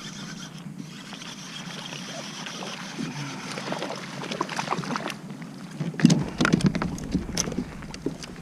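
A kayak on the water: a steady wash of water and wind, then from about three seconds in a run of irregular knocks and clatters against the boat, loudest about six seconds in.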